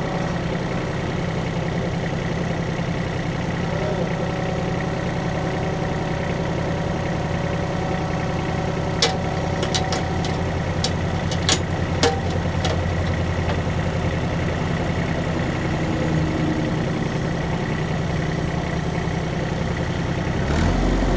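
A vehicle engine idling steadily with a low hum. A few sharp clicks or knocks come around the middle. Near the end the engine note shifts lower and grows a little louder.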